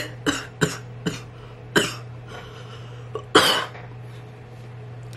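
A woman coughing in a fit: a run of short coughs in the first two seconds, then a longer, louder cough about three and a half seconds in.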